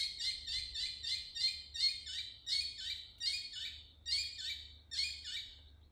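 Collared kingfisher calling: a long series of harsh, repeated notes, about three a second.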